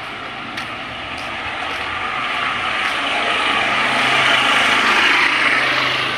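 A motor vehicle passing on the street, its engine and road noise swelling to loudest about four to five seconds in and then easing off.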